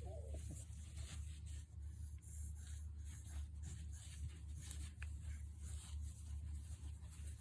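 Light scratching and rubbing sounds, scattered and irregular, over a low steady hum, with a short faint whine right at the start.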